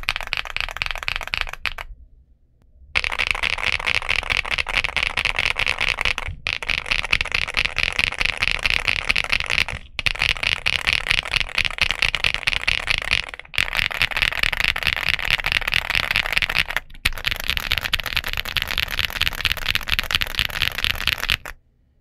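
Fast typing on a Feker Galaxy80 aluminum TKL mechanical keyboard fitted with Feker Marble switches and PBT MDA-profile keycaps: a dense, continuous run of keystrokes. It pauses for about a second near the start, breaks briefly every few seconds, and stops just before the end.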